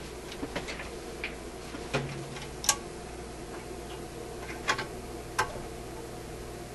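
Scattered light clicks and ticks, about eight at irregular intervals, from a vacuum-tube radio chassis being handled, over a steady low electrical hum.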